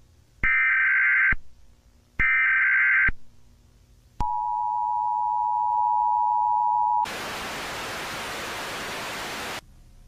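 Emergency Alert System-style alarm: two short buzzy data bursts of the header, then the steady two-tone attention signal for about three seconds, then a burst of loud static that cuts off suddenly.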